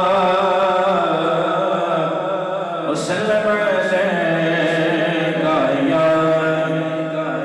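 A man's voice singing a naat in long, drawn-out melismatic notes, the pitch wavering and gliding on each held note, with a new phrase starting about three seconds in.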